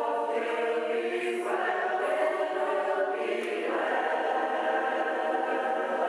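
Choir singing, holding long sustained chords that shift to new chords about a second and a half in and again nearly four seconds in.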